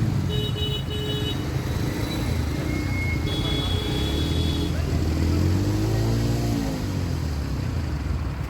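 Motor vehicle engines running in traffic, a steady low drone, with one engine's pitch rising and then falling about six seconds in.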